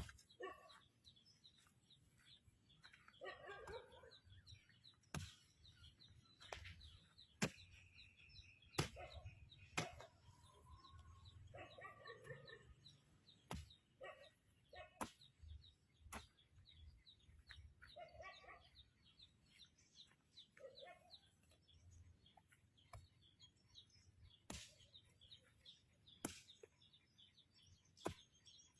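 Faint, scattered short chirping calls of birds, with sharp clicks at irregular intervals throughout.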